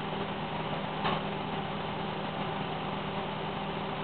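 Steady hiss of a glassblowing bench torch flame, with a low steady hum underneath and a faint tick about a second in.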